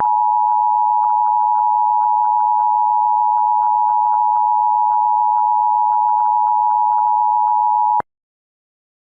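Emergency alert attention tone: one steady electronic tone just under 1 kHz, held for about eight seconds and then cut off abruptly.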